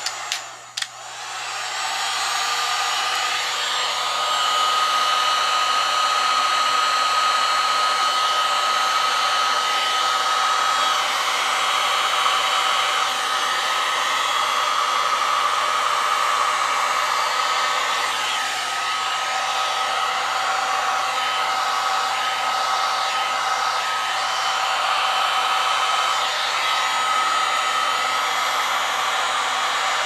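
Handheld heat gun running, a steady rush of blown air with a thin whine on top; it comes up to full speed over the first couple of seconds and then holds steady.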